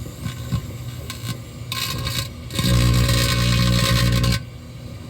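Microwave oven running with a loud, steady hum and hiss. It stops, returns about two and a half seconds in, and cuts off sharply a couple of seconds later.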